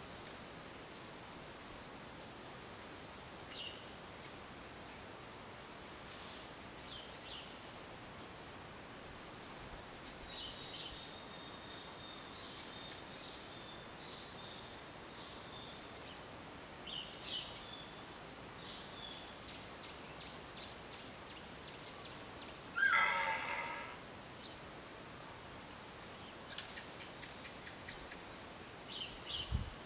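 Several birds chirping and calling: short high notes and quick hooked calls in small runs of three or four. About three-quarters of the way through comes one louder, lower animal call lasting about a second.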